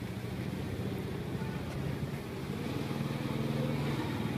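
A motor engine running steadily, a low pitched hum that grows a little stronger in the second half.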